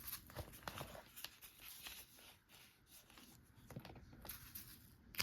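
Faint scratching and rustling of a pen writing on a folded construction-paper boat, with a few light taps.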